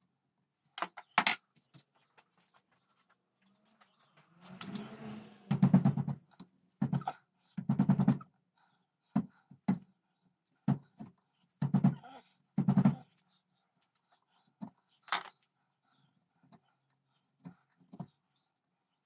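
Small hand knife cutting and scraping at a cherry-wood dagger handle held in a bench vise: irregular short scrapes, clicks and knocks, with a longer rasping cut about five seconds in.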